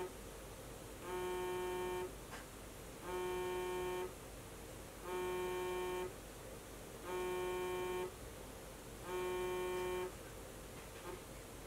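Smartphone buzzing on a wooden table for an unanswered incoming call: a steady buzz about a second long, repeating every two seconds, that stops about ten seconds in when the call ends.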